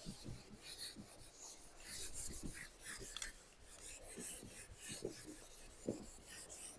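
Faint scratching and rubbing of a pen writing, in short irregular strokes.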